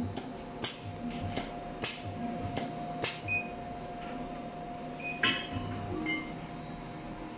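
Automatic glue-dispensing machine working through a row of ferrules: a run of short hissing clicks about twice a second, each with a low thump, over a steady hum. After that come a few short beeps as its touchscreen is pressed, with one louder click about five seconds in.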